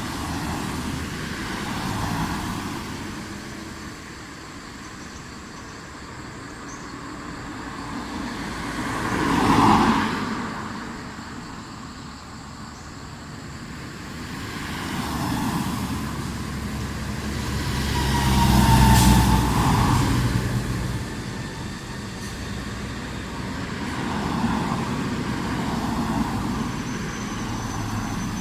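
Road vehicles passing one after another on a street, each swelling up and fading away. The two loudest pass-bys come about ten seconds in and near the two-thirds mark, the second with a deep engine hum.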